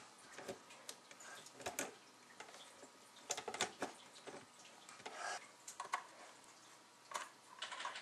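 Faint, scattered small clicks and taps of hands and a screwdriver working at a smoke detector's plastic ceiling mounting plate.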